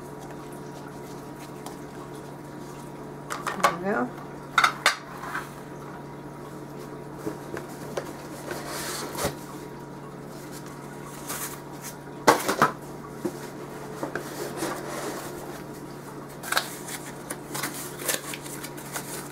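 Glass food-storage dishes and their plastic snap-lock lids clinking and knocking as they are handled and set down on a table: a scatter of sharp knocks, the loudest about twelve seconds in, over a faint steady hum.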